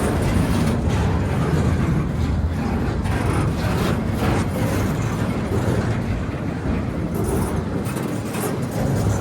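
Train passing on the track: a steady rumble of wheels on rail, with a few short clacks mixed in.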